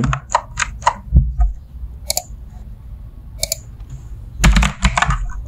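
Computer keyboard keys clicking as code is typed: a quick run of keystrokes in the first second, single keys struck around the middle, and a short flurry near the end.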